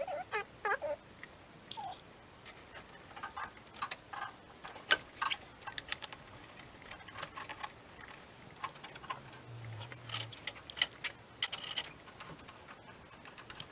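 Irregular light clicks and metallic clinks of hand tools and small fittings being handled during the nitrous kit fitting, with a denser run of clicks about ten to twelve seconds in.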